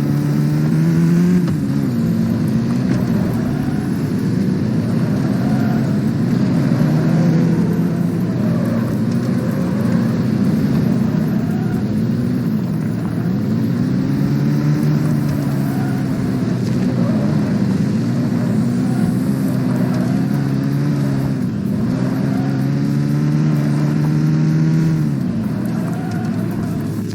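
An engine or motor running, its pitch rising and falling in slow sweeps that repeat every few seconds.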